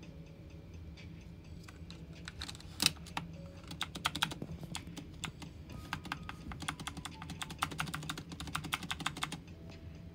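One loud sharp click about three seconds in, then about six seconds of fast typing on a mechanical keyboard. A shift keycap stands in for the space bar. Faint background music plays under it.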